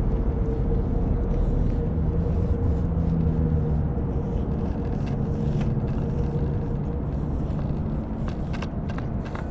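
A steady low rumble with a droning hum, over which a cat eating wet food from a steel dish starts chewing and licking in sharp wet clicks near the end.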